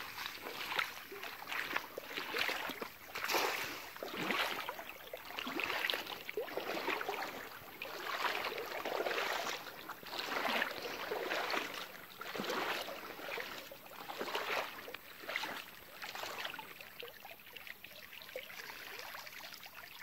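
Shallow river water sloshing and splashing in repeated surges about once a second, as a person wades and hauls a cast net back through the water. The surges become quieter near the end.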